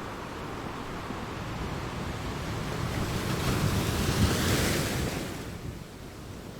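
Ocean waves on a shore: one wave builds, breaks with a rush of surf about four seconds in, and washes out, with steady low surf wash underneath.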